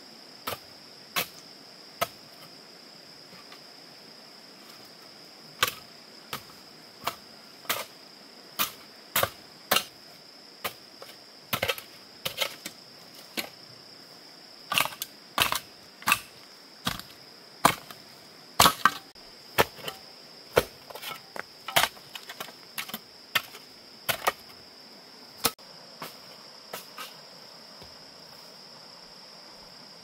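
A steady, high insect drone runs throughout. Over it come about thirty sharp, irregular knocks or snaps, spaced from a fraction of a second to a few seconds apart, coming thickest in the middle and thinning out near the end.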